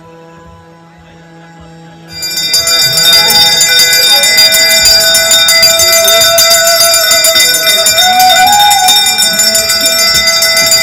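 A conch shell is blown in one steady note, then about two seconds in many brass hand bells start ringing together, loud and continuous, during a Hindu aarti. A voice sings a wavering melody over the bells.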